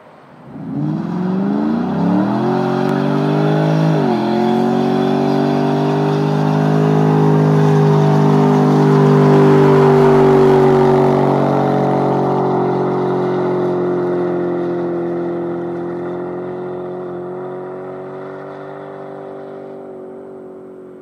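Ford Mustang GT's 4.6-litre V8 revving hard during a third-gear burnout, rear tyres spinning. It climbs in pitch, drops sharply once about four seconds in, then holds at high revs before slowly falling in pitch and fading as the car pulls away.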